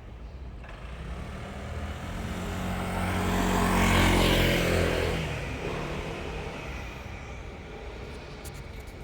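A vehicle passing by at a level crossing, its sound swelling to a peak about four seconds in and fading away by about seven seconds, with a steady low hum under the noise.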